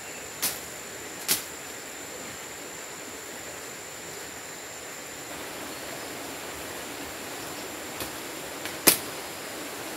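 Four short sharp snaps of plant stems being broken off by hand as leaves are picked, two early and two near the end, the last the loudest. Underneath, a steady high-pitched insect whine and an even rushing background.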